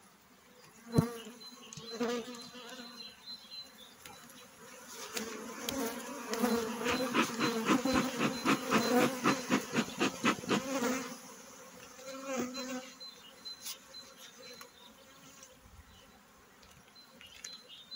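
Honeybees buzzing around an open hive, with a bee smoker's bellows puffing rapidly, about three puffs a second, for some six seconds in the middle. A sharp knock comes about a second in.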